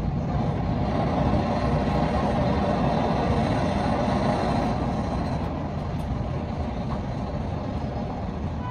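Steady low mechanical rumble with a broad hiss over it, easing slightly in the second half.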